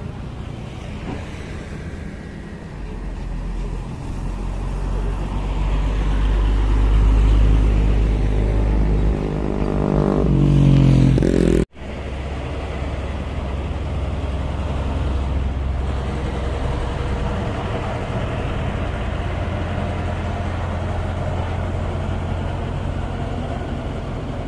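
Road traffic: a heavy motor vehicle's engine rumble grows louder and revs up as it passes. After a sudden cut, a pneumatic-tyred road roller's engine runs steadily close by on fresh asphalt.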